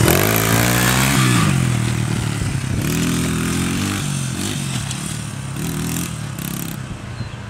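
Small pit bike engine revving, its pitch rising sharply at the start and then rising and falling as the throttle is worked. It grows fainter as the bike rides away.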